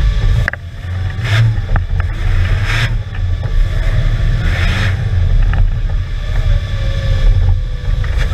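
Off-road trial vehicle's engine running hard under load, heard from inside the open cabin, dropping briefly about half a second in and then pulling again. A few short bursts of noise sound over the engine.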